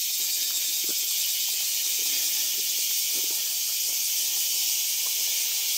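A dense chorus of cicadas in the surrounding forest, an unbroken high hiss with a slight pulsing, over faint footsteps on stone paving.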